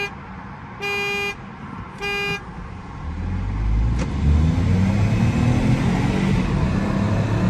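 Three short, steady toots about a second apart, like a start countdown. Then, from about three seconds in, a car accelerates hard, its engine and road noise building up and staying loud.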